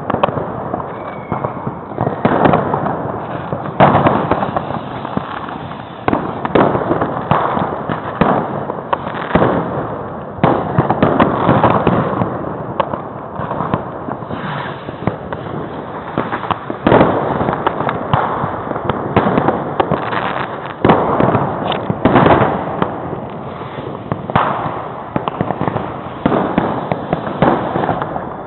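New Year's Eve fireworks and firecrackers going off continuously: loud bangs and crackling follow each other in quick, irregular succession and overlap, with no pause.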